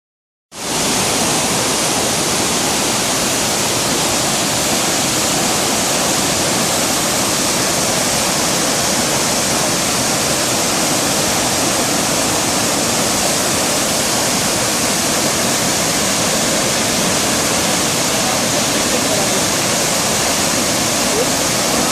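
Tortum Waterfall's water pouring down in a loud, steady, even rush.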